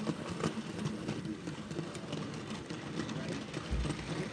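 Model steam locomotive and its goods wagons running past on the track: the motor's hum with a steady clatter of wheels over rail joints and points, and a brief low bump near the end.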